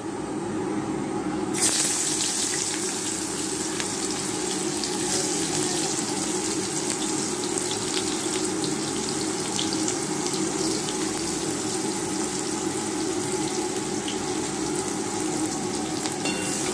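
Sliced onions dropped into hot mustard oil in a karahi, sizzling: the hiss starts suddenly about a second and a half in and then holds steady.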